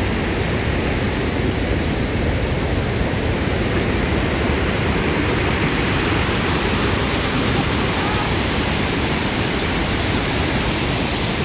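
Kakabeka Falls, a large waterfall, rushing in a loud, steady, unbroken roar.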